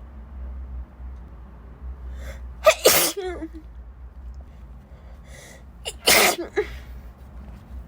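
A woman sneezing twice, about three seconds apart, each sneeze preceded by a short intake of breath; the first trails off in a brief falling vocal sound.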